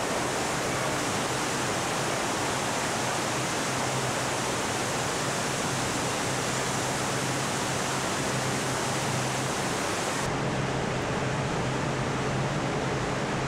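Steady rushing noise like flowing liquid, with a low steady hum, from a car-body paint-shop dip tank. About ten seconds in, the sound turns duller and deeper.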